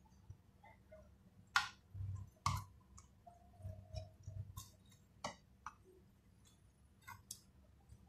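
Faint, scattered clicks and taps of a chef's knife on a wooden cutting board as raw shrimp are slit open and deveined. A sharp tap comes about a second and a half in, another a second later, and a few lighter ones follow.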